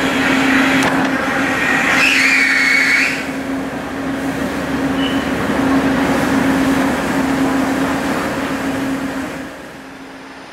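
Large car ferry's machinery droning steadily with a constant low hum and rushing noise, with a brief high squeal about two seconds in. The drone drops quieter near the end.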